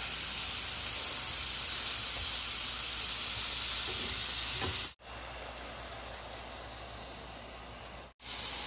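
Cheese-stuffed ground beef patties sizzling steadily on a hot griddle, just flipped. About five seconds in the sound breaks off suddenly and comes back as a softer sizzle, with a patty under a glass lid, before breaking again near the end.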